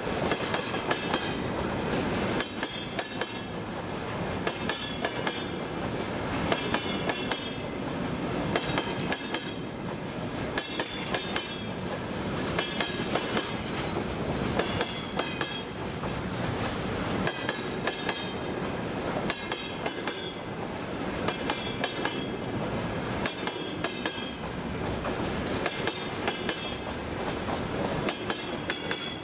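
Freight wagons of a passing train, empty timber flatcars and open gondola cars, rolling by close at speed: a steady rumble with the wheels clattering over the rail joints in repeated groups of clicks every second or two.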